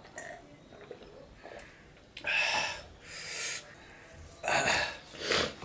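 A man breathing noisily: four loud, hissing breaths in two pairs, starting about two seconds in.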